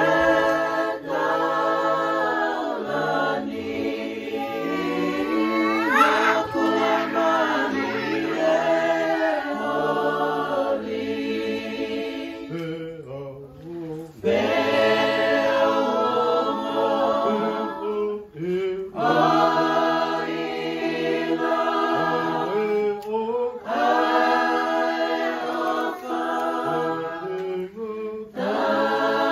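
A family group singing a hymn together, many voices in long held phrases with short breaks between them. About six seconds in, a brief rising squeal cuts through the singing.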